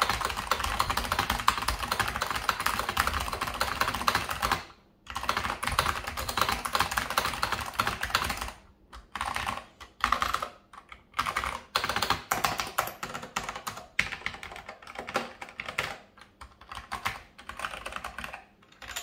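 Magnavox VideoWriter keyboard with Alps SKCM Brown tactile switches being typed on: fast, continuous keystrokes that stop briefly about five seconds in, then carry on in shorter runs with small gaps.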